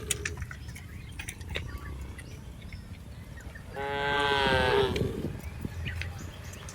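A cow mooing once, about four seconds in, a single call lasting about a second.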